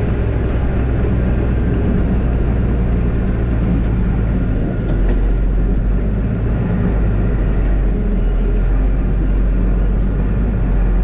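Mercedes-Benz Unimog U1400's diesel engine running steadily under load as it drives with its front snowplow blade pushing snow, a constant low drone with a rushing noise over it.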